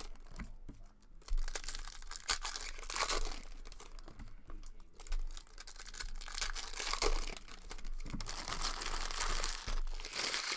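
Foil wrapper of a trading-card pack crinkling and tearing as hands open it, in irregular rustling bursts.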